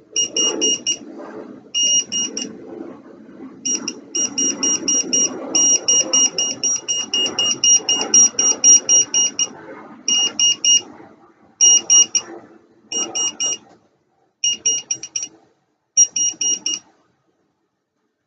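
Voltage-tester screwdriver beeping rapidly and shrilly, about five beeps a second, in runs that start and stop as the tip moves on and off the wire, over handling rustle. The beeping signals that voltage is detected.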